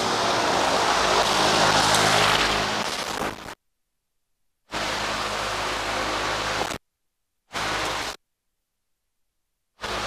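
Steady outdoor background noise with a faint low hum, swelling louder around one to three seconds in, broken three times by stretches of dead silence.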